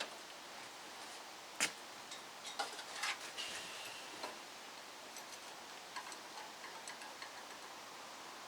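Faint, scattered clicks and light knocks of metal being handled, with one sharper knock about a second and a half in and a brief high squeak shortly after a little cluster of clicks, as the engine is eased into the engine bay.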